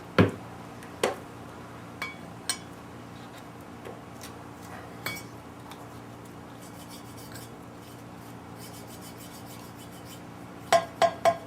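Metal clicks and taps of a valve being worked on its seat in a cast cylinder head with fine lapping compound, with a faint gritty rasp in the middle. Near the end comes a quick run of about six ringing metal taps as the valve is lifted and dropped against its seat.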